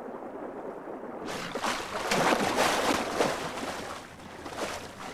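Water splashing as a California sea lion thrashes a steelhead salmon at the surface. The splashing starts about a second in, is loudest in the middle, and dies down near the end.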